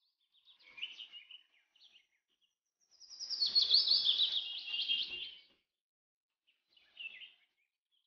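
Small birds chirping: a few short calls about a second in, a louder run of rapid chirps from about three to five and a half seconds, and a brief call near seven seconds.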